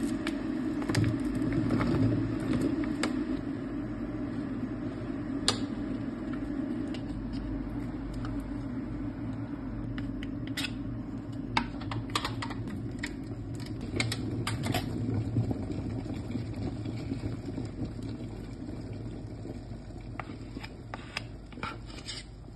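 Cherry tomatoes dropped one after another into a ceramic baking dish, landing with short light clicks and taps, over a steady low mechanical hum.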